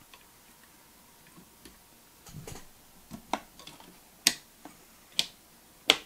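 Intel stock CPU cooler's plastic push-pin fasteners being pressed into the motherboard: four sharp clicks about a second apart in the second half, with softer handling noise before them.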